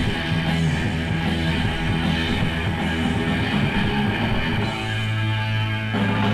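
Heavy rock music with guitar, in a punk or metal style; a steady low bass note sets in about five seconds in.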